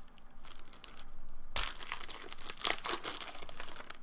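A football card pack's wrapper being torn open and crinkled by hand, with a sharp rip about a second and a half in followed by a run of crackling.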